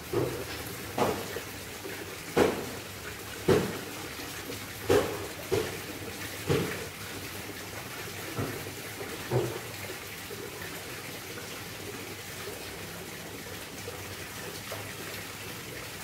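Water from a small garden waterfall spilling down a rock wall into a fish pond, a steady splashing rush. Sharp knocks come about once a second through the first half, then stop.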